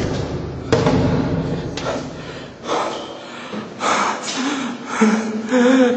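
A thud about a second in, then a person breathing hard in a run of short, noisy breaths, some of them voiced near the end.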